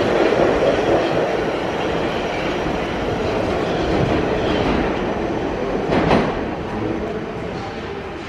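R46 subway train departing, its wheels and running gear on the rails fading as it pulls away, with one loud sharp clank about six seconds in.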